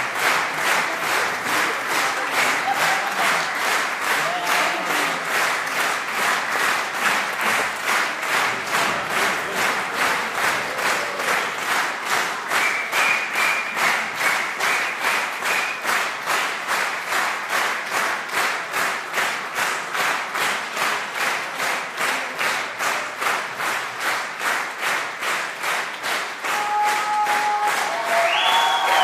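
Audience clapping together in a steady rhythm, about two and a half claps a second, over a murmur of crowd voices. Near the end, voices rise in loud shouting and singing over the clapping.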